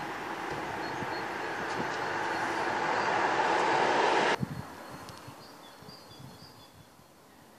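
Road traffic on a wet street: a passing car's tyre and engine noise swells to a peak and cuts off suddenly about four seconds in. After that, a faint quiet background with a few short bird chirps.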